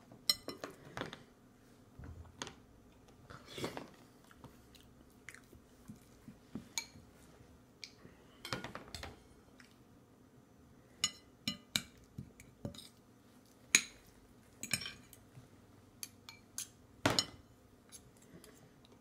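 A baby handling a spoon and bowl on a high-chair tray: irregular clinks, taps and knocks, a few every second or so, some of them ringing briefly.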